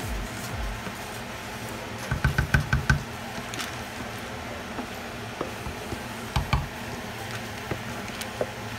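Rice being tipped from a plastic bowl into a pot, with a quick run of about six knocks against the pot a couple of seconds in and two more knocks about six and a half seconds in.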